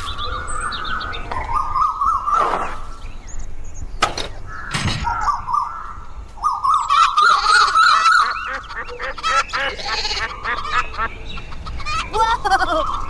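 Geese honking repeatedly, with smaller birds chirping higher up, and a couple of sharp knocks about four and five seconds in.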